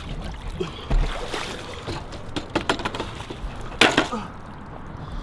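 A BMX bike knocking and clattering with water splashing around it, and one loud sharp impact just before four seconds in.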